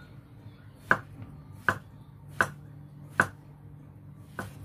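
A cleaver cutting down through a block of tempeh onto a thick round wooden chopping board: five sharp knocks, the first four about three-quarters of a second apart, the last softer after a longer pause.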